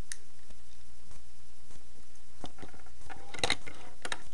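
Hard plastic parts of a Transformers Warrior Class Bumblebee figure being handled and clicked into place: scattered clicks, with a quick cluster of clicks and rattles about three and a half seconds in and two more clicks just after.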